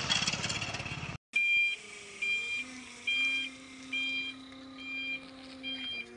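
Forklift engine running close by, then, after a brief dropout, the forklift's reversing alarm beeping about once a second, six short two-tone beeps over the engine's steady hum.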